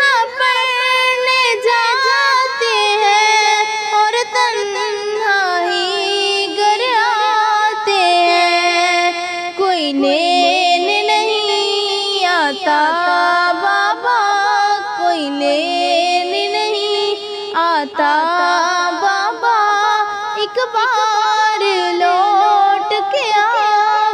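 A woman singing a long, ornamented melodic passage with vibrato, with no clear words.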